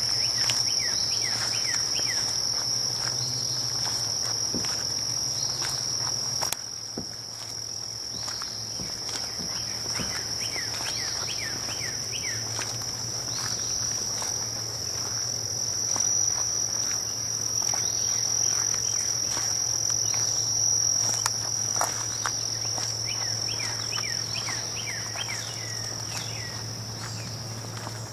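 Insects trilling in one steady, high-pitched drone, with short falling chirps coming and going over it.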